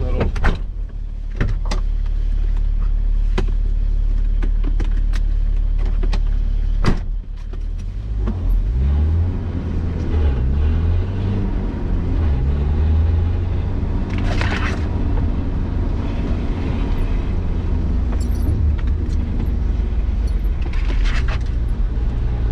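Nissan Patrol Y60 engine working off-road, its pitch rising and falling as it revs. Sharp knocks and rattles come from the vehicle over the first several seconds.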